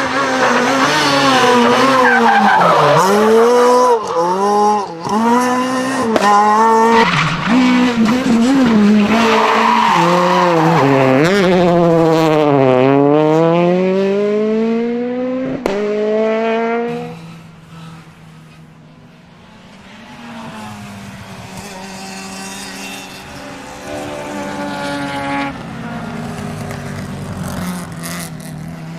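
Race car engine sound revving hard, its pitch climbing and dropping again and again, with one long climb near the middle. After about 17 seconds it falls to a much quieter, steady running.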